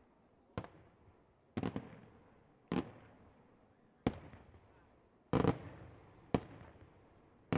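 Aerial firework shells bursting in a display: sharp bangs about once a second, a few coming in quick clusters, each trailing off in a fading echo.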